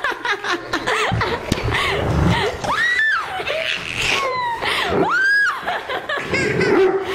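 A toddler laughing hard, with high squeals that rise and fall, one about three seconds in and a longer one about five seconds in.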